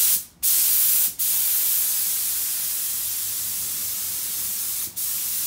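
Husky HVLP gravity-feed spray gun hissing steadily as it sprays water-thinned latex paint, stopping briefly three times.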